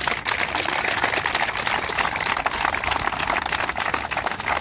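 A large group of people applauding: many hands clapping steadily.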